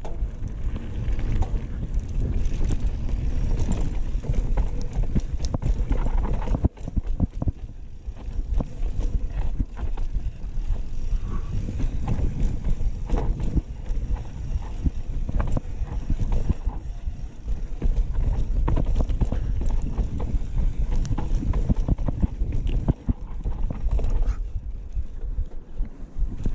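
Mountain bike riding down a rocky dirt singletrack: tyres roll over dirt and loose stones, and the bike rattles with many quick sharp knocks over a low wind rumble on the microphone. It eases off briefly twice, about a third of the way in and near the end.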